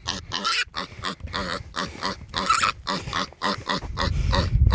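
Young feral hog, caught and held by hand, squealing in quick repeated bursts. A low rumble on the microphone builds near the end.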